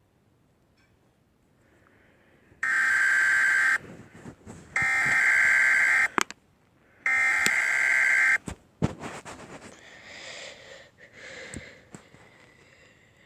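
Emergency Alert System SAME header: three bursts of harsh digital data tones, each about a second long with a second's gap between them, signalling the start of an emergency alert.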